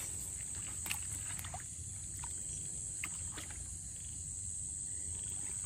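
Hands working in shallow muddy water, with a few faint small splashes, over a steady high chorus of night insects.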